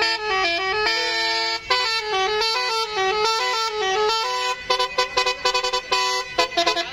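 Indonesian "telolet basuri" multi-tone bus horn playing a fast melody of stepping notes, with a chord held briefly about a second in and quicker, choppier notes from about four seconds in.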